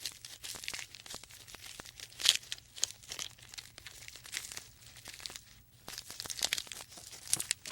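Quiet, irregular crackling and crunching: a dense run of small clicks, rustles and tearing sounds with no call or voice, a little louder about two seconds in and near the end.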